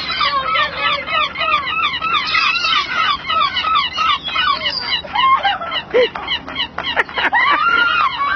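A large flock of seagulls calling all at once, a dense chatter of short overlapping squawks, with a few longer, louder calls near the end.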